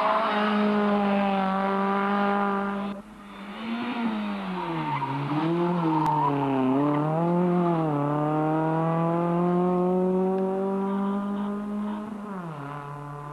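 Rally car engine revving hard: it holds high revs, cuts off abruptly about three seconds in, then comes back dipping and rising as the driver lifts and changes gear. Its pitch climbs steadily for several seconds before falling sharply near the end.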